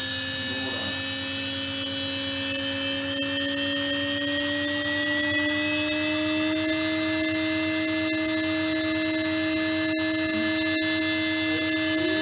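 High-speed motor spindle of a KERN 1016 CNC milling machine spinning free without cutting: a steady whine of several tones that rises slightly in pitch over the first six seconds or so, then holds level.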